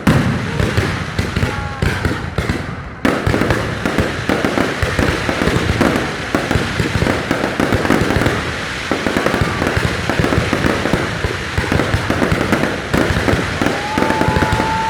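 Fireworks display: aerial shells bursting in a dense barrage, opening with a heavy bang, then a continuous crackle from about three seconds in. A few short whistling tones near the start and end.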